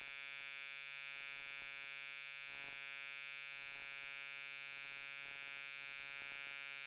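AC TIG welding arc on aluminum plate, running as a steady, even buzz while a bead is laid.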